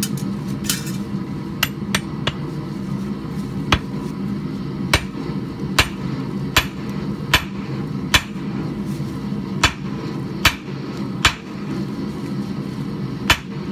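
About a dozen hammer blows on a red-hot 1.5-inch mild steel bar standing in an anvil's hardy hole, roughly one a second at an uneven pace, each a sharp clang with a short ring. The bar is being upset, its end driven down to form a shoulder. A steady low hum sits underneath.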